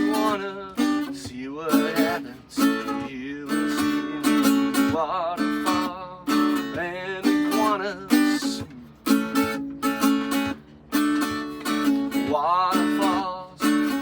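Instrumental passage of a song: strummed acoustic guitar chords in a steady rhythm, with a wavering melody line over them.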